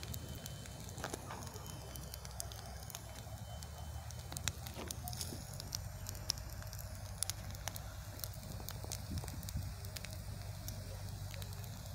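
Bonfire of dry branches and twigs burning, with irregular sharp crackles and pops over a low steady rumble.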